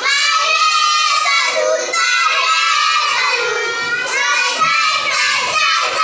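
A small group of young children singing a nursery rhyme together.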